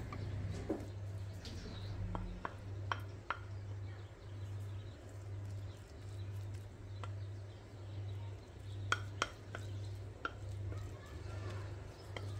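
Wooden spoon scooping cooked pilaf into a ceramic bowl, with scattered light clicks and taps of the spoon against the bowl and the stainless steel pot. Under it runs a low hum that swells and fades about twice a second.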